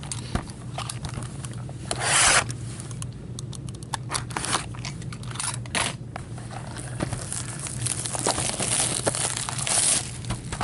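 Plastic shrink-wrap being torn and crumpled off a sealed hockey card box: a run of crackles, rustles and clicks, with one loud rip about two seconds in.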